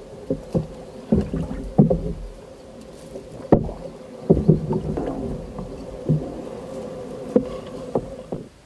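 Narrow wooden boat being worked through a reed marsh: irregular knocks and thumps on the wooden hull, with reeds scraping and rustling against it.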